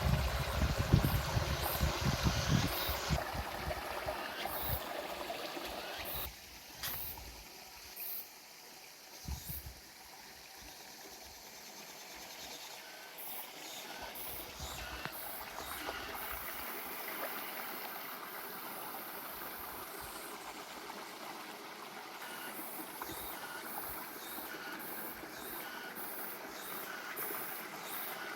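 Running water trickling and gurgling steadily, with a low rumble in the first few seconds and a few brief louder sounds about six to nine seconds in.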